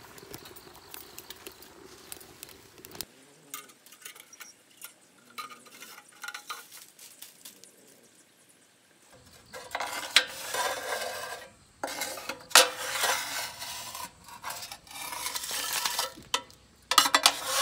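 Metal tongs clinking and scraping against a stainless steel rocket stove and aluminium foil, with the foil crinkling. The noise is faint at first and turns loud and busy from about nine or ten seconds in.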